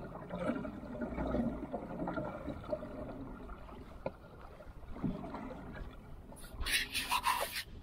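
Water lapping and sloshing against a kayak's hull as the kayak moves across choppy water. Near the end comes a quick cluster of short, sharp noisy sounds.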